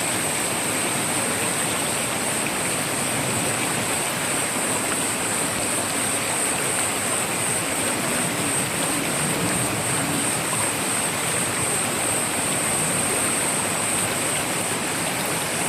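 Mountain valley stream rushing steadily, with a steady high-pitched hiss over it.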